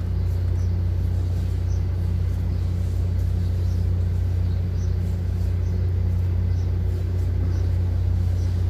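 Engine idling steadily, a low even hum with no change in speed.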